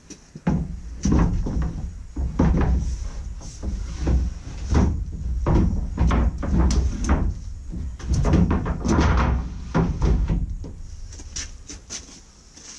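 Wooden shelf boards being stacked and slid into a cargo trailer: a string of hollow wooden knocks and thuds, with scraping as the boards go in, repeating every second or so.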